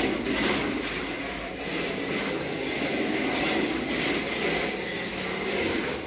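Reve D RDX 1/10 rear-wheel-drive electric RC drift car being driven, its motor and sliding tyres swelling and easing in waves as it is throttled.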